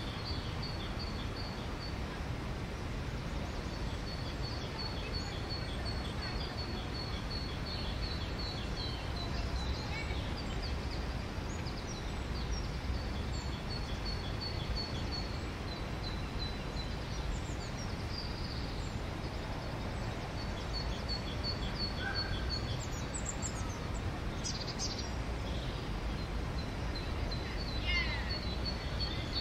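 Songbirds singing over a steady low background rumble. One bird repeats quick runs of short, even high notes again and again, and other birds give a few brief falling chirps near the end.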